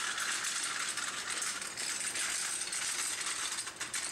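Motorcycle jack rattling and clicking as it is moved into place under a motorcycle: a steady, dense run of light metal clicks.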